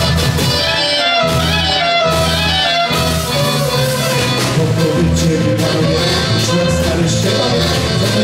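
A small folk band of clarinet, accordion, electric bass and drum kit playing an instrumental passage, with a bass line under the melody and a steady drum beat.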